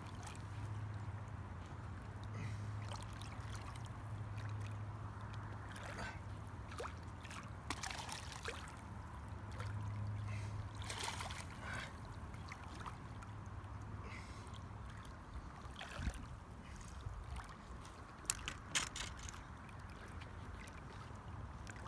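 Large blue catfish thrashing in shallow water as it is grabbed by hand, giving a few short, separate splashes over a steady low hum.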